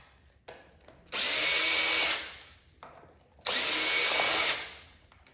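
Power drill driving a T25 Torx bit, backing out the top cover bolts. It runs twice for about a second each time, and each run fades out as the motor winds down. Light clicks come between the runs.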